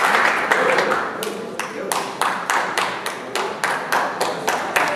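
Audience applause thinning out about a second in, leaving steady rhythmic clapping in time, about three claps a second.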